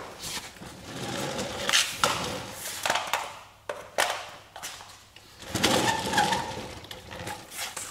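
Irregular scuffing, rustling and sharp clicks and knocks of handling and movement, with no sander running.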